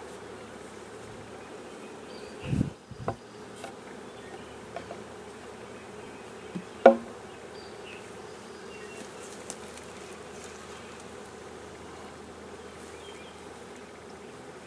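Honeybee swarm buzzing steadily, with a low thump about two and a half seconds in, a click just after, and a sharp knock about seven seconds in, the loudest sound, plus a few faint ticks.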